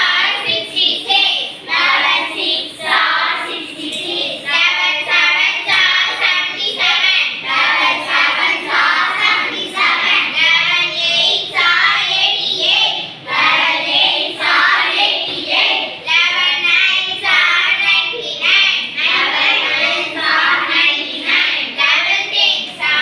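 Children's voices chanting a multiplication table aloud in a sing-song rhythm, several voices together.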